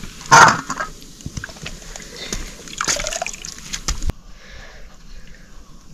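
Water sloshing and splashing, with one loud splash about half a second in, followed by smaller irregular splashes and a few sharp knocks.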